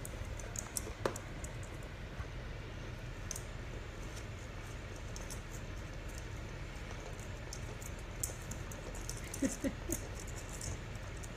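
Old English sheepdog puppy chewing and pawing a plastic ball toy: scattered soft clicks and taps, with a few louder knocks about a second in and near the end, over a steady low hum.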